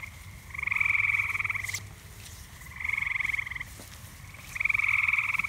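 Frogs calling along the creek: pulsed trills about a second long, three loud ones with fainter, more distant trills between them.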